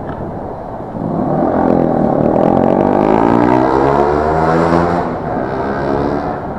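A vehicle engine close by accelerating: its pitch climbs steadily for about three seconds, then eases off, over wind and road noise.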